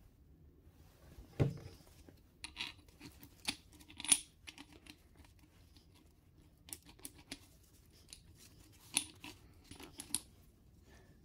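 Small metal parts being handled: a zinc-plated bolt clicking and tapping against the hub of a rusty clutch disc, with a dull knock about a second and a half in and sharp clicks in three clusters after it.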